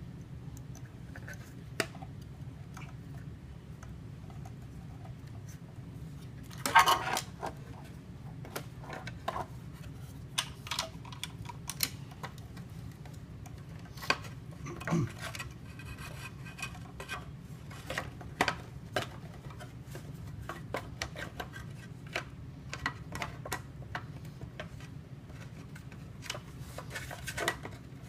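Scattered clicks and light clatter of small hard objects being handled, over a steady low hum; a louder rattle about seven seconds in and another near the end.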